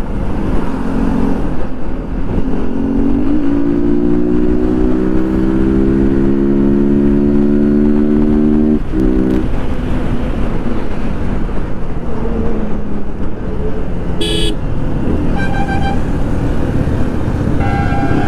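Yamaha R15's single-cylinder engine accelerating, its pitch climbing steadily for about five seconds before it breaks off suddenly at a gear change, over constant wind and road rush. Near the end the surrounding traffic honks: one short toot, then longer horn blasts.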